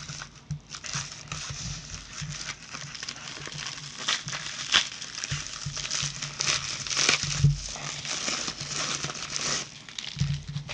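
Crinkling and crackling of a padded paper-and-plastic mailer as it is handled and opened by hand. The crinkling starts about a second in and eases off near the end.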